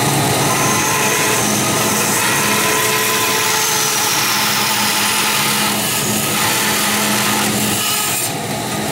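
Vertical bandsaw running with a steady motor hum, its blade cutting through a square aluminium tube.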